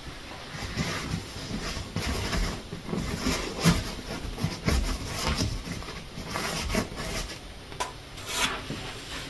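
Paper towels rustling and crinkling as they are handled and stuffed around a door hinge, with scattered light knocks and a sharp click near the end.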